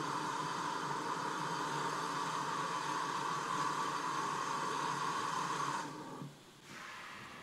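Steam hissing steadily from GWR 14xx tank engine 1450, its safety valves blowing off, with a steady whistling tone in the hiss; it stops suddenly near the end.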